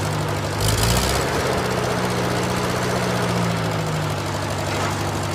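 Tractor engine running steadily at low revs, with a brief rev-up about a second in.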